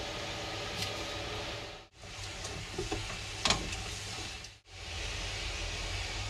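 Steady kitchen background hiss, with a few light clinks and one sharp clink about three and a half seconds in as tongs stir the water in a stainless steel pot. The hiss drops out briefly twice.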